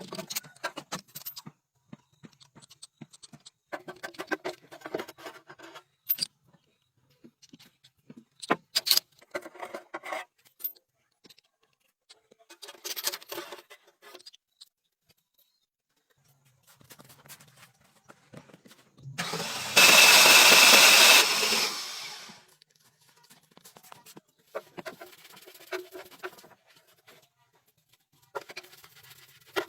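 Scattered workshop tool noises, short scrapes and knocks, with one loud burst of a power tool running for about three seconds about two-thirds of the way through.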